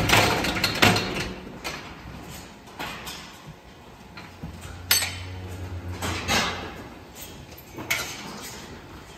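Sharp metallic knocks and rattles from a steel hoof-trimming crate holding a cow, a handful of them with the loudest at the start, and a low hum for about two seconds in the middle from the crate's machinery.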